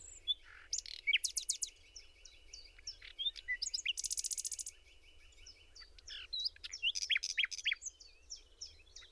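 Several birds chirping and singing at once: many short chirps and quick rising and falling whistles overlapping, with a dense, rapid trill about four seconds in.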